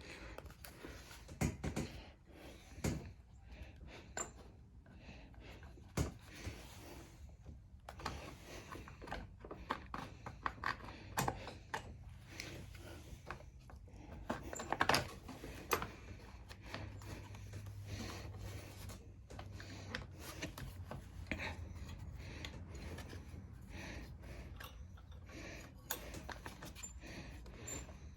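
Hand-work on the mower's engine parts as they are refitted: scattered clicks, taps and rubbing of plastic and metal parts being handled and pressed into place, with a few sharper knocks about a second and a half, six and fifteen seconds in.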